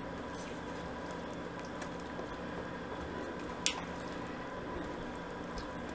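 A silicone spatula stirring thick, hot fudge mixture with melting white chocolate in a saucepan: soft wet squishing and scraping, over a faint steady hum. One sharp click about three and a half seconds in.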